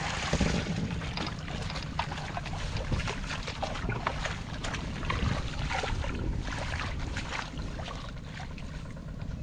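Hands splashing and sloshing in shallow muddy paddy water as they grope through the mud and grass, in many short irregular splashes. A steady rumble of wind buffets the microphone throughout.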